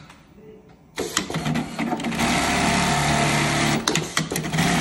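QURIS automatic label-sewing machine starting about a second in and stitching a small label at speed: a fast, steady run of needle strokes that breaks into shorter stop-start bursts near the end.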